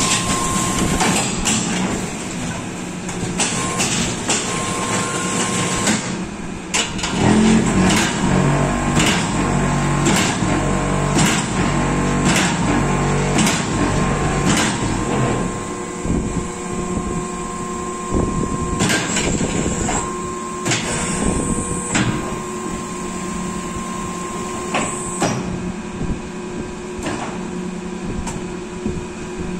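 Automatic concrete block making machine running: a steady motor hum with repeated metal clanks throughout, and a heavy low rumble from about seven to fifteen seconds in.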